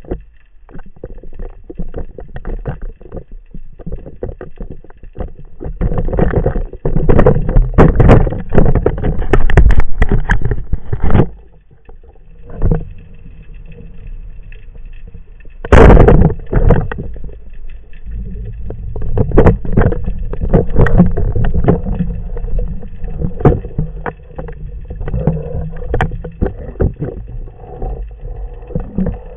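Water sloshing, rushing and bubbling heard underwater, muffled, as a spearfisher dives and resurfaces, with many irregular knocks and crackles. The water noise swells into louder rushing stretches partway through and one sharp loud burst about halfway.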